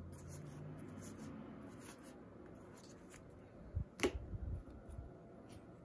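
Faint handling of Magic: The Gathering cards, light clicks and slides as the cards are fanned and sorted by hand. About four seconds in comes a short cluster of soft taps with one sharper click, as cards are put down on the table.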